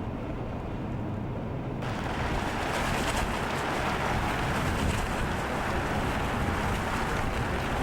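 Wind blowing in a snowstorm, rushing and buffeting against the microphone; the sound turns brighter and louder abruptly about two seconds in.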